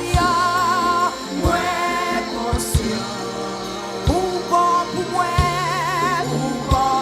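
Live gospel worship song: a lead vocal held in long notes with vibrato, over a band with a steady bass line and a kick drum striking every second or so.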